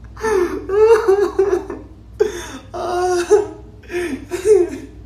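A man laughing hard and high-pitched, in several bursts with short breaks between them.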